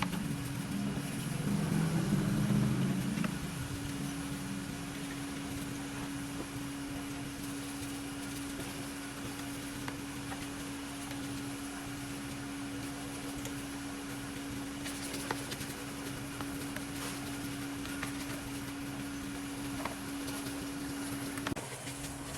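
A machine running steadily with a constant hum, a louder rumble about two seconds in, and a few faint clicks; the hum stops shortly before the end.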